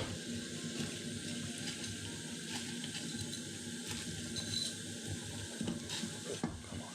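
Pot of noodle water at a rolling boil, bubbling steadily, with small scattered ticks.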